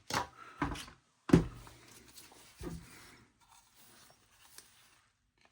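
Parts of a Roomba i7's suction motor and fan assembly being handled on a bench: four short knocks and clicks in the first three seconds, the loudest about a second and a half in, then a few faint taps.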